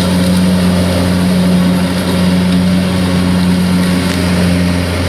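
Kubota DC-70 combine harvester's diesel engine running at a steady pitch.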